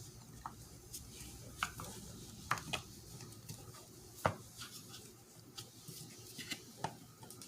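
Irregular light clicks and taps of metal tools (a pick and a screwdriver) against the plastic and metal of a manual shifter assembly while prying out its plastic retaining pin; the sharpest tap comes a little past halfway.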